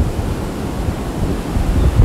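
Gusty storm wind buffeting the microphone in low rumbling surges, over the steady rush of surf; the wind is from a Category 4 hurricane passing offshore.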